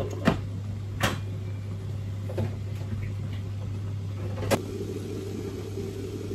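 A metal pot lid clinks down onto a cooking pot just after the start, followed by two more sharp knocks, about a second in and near four and a half seconds, over a steady low hum.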